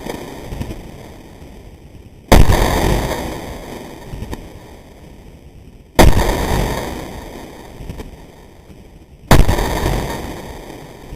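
Glock 19 9mm pistol fired three single shots, a few seconds apart, each shot leaving a long fading echo.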